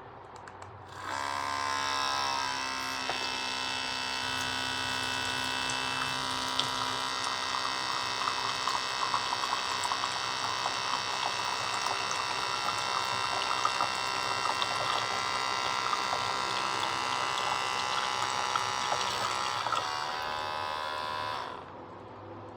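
Outin Nano portable espresso machine's small electric pump running with a steady whine for about twenty seconds. Its pitch wavers as it starts about a second in, and it cuts off shortly before the end. The water tank is empty, so the pump is running dry.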